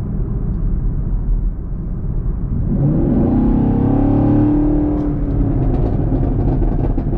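The 2021 Camaro SS's 6.2-litre V8 cruising with a steady rumble, heard from inside the cabin, then accelerating hard about three seconds in with its note rising. After the throttle lifts, the exhaust crackles and pops through the last couple of seconds.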